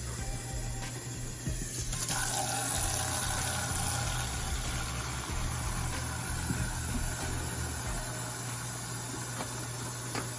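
Steady rush of running water, like a tap running into a sink, starting about two seconds in, over a low steady hum.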